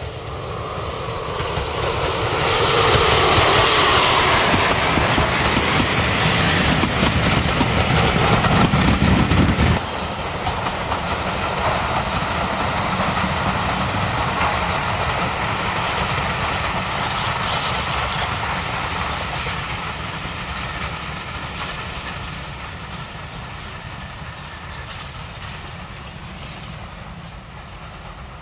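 Steam locomotive hauling a train of passenger coaches past close by, building to its loudest a few seconds in. About ten seconds in the sound drops suddenly to a more distant train running away, fading slowly.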